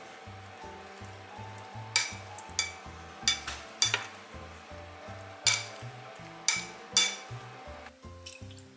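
Fried tofu pouches simmering and sizzling in a sugar and soy sauce liquid in a small pot, with several sharp clicks as chopsticks knock against the pot while turning them. The sizzling stops near the end; soft background music runs underneath.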